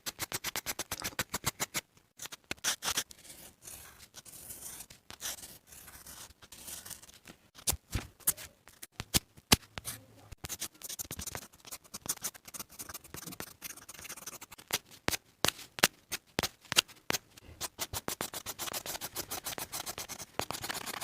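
Pencil scratching on paper in quick, repeated shading strokes, several a second in places, with stretches of steadier rubbing.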